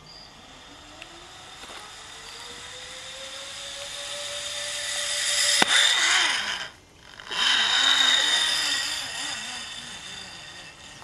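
Zipline trolley pulley whirring along the cable as a rider speeds down. Its whine rises in pitch and grows louder up to a sharp click about halfway through, then turns to a lower, wavering whir as it slows.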